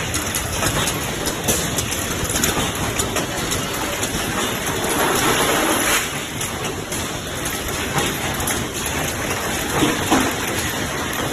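Automated ball-bearing assembly machines running: a steady, dense clatter of many small clicks and metallic rattles. It grows louder about five seconds in, and a few sharper clicks come near the end.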